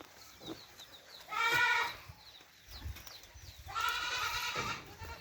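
Goats bleating: two calls, a short one and then a longer one about two seconds later.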